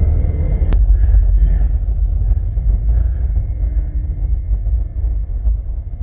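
Deep, steady rumble of a film soundtrack played loud through cinema speakers, with one sharp click about a second in.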